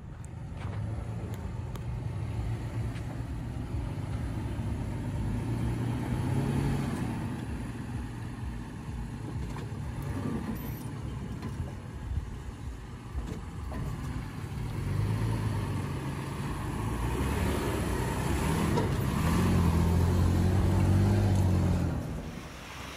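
2018 Toyota 4Runner TRD Off-Road's V6 engine working under load as the truck crawls through deep dirt ruts. The engine rises twice, about six seconds in and more strongly near the end, then falls away sharply.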